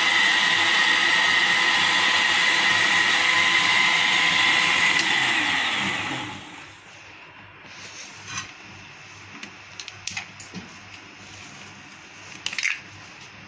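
Electric countertop blender running at speed, blending a mango milkshake, with a steady high whine. About five seconds in it is switched off and the motor spins down with a falling pitch. A few light clicks and knocks follow as the jar is handled.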